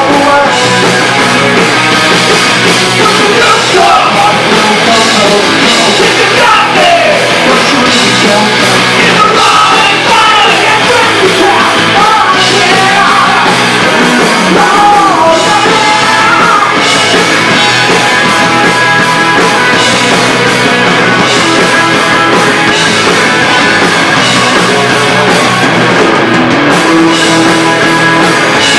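Live rock band playing loud and without a break: electric guitars, bass guitar and a drum kit.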